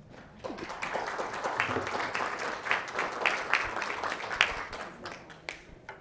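Audience applauding: it starts about half a second in and dies away near the end.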